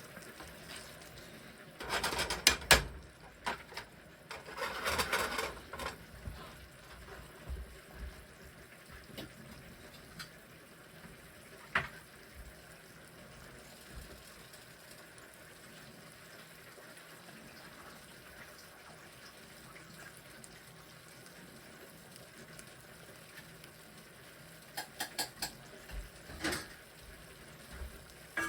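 Kitchen work sounds: two short rushes of running or pouring liquid early on, then scattered clinks and knocks of pots and utensils over a faint steady hiss.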